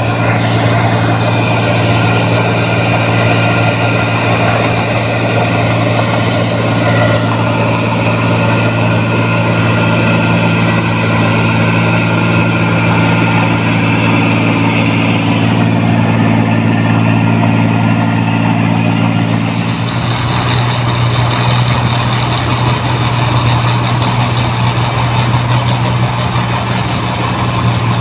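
Rice combine harvester's diesel engine running steadily and loud, with a constant low hum; the engine sound changes abruptly about two-thirds of the way through and runs on steadily.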